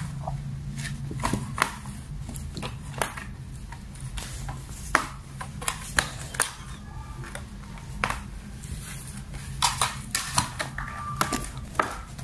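Scattered light clicks and crackles of a woven wicker basket as kittens climb and scrabble in it, over a low steady hum.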